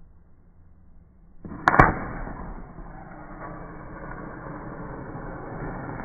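A wooden safety match struck on a matchbox's striking strip about a second and a half in: a short scrape and two sharp cracks as the head ignites, then a steady hiss of the match burning.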